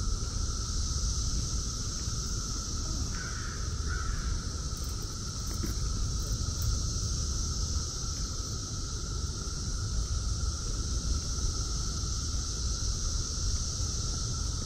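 Periodical cicadas of Brood X singing in a steady, unbroken chorus: a constant droning buzz with a higher hiss above it. About three seconds in, two short calls cut across the chorus.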